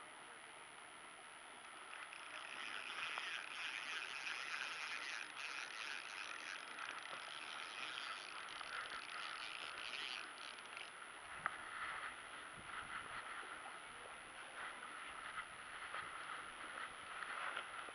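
Spinning reel being cranked while a hooked trout is played on an ultralight rod: a steady whirring rattle starting about two seconds in, becoming more uneven with a few sharp clicks in the second half.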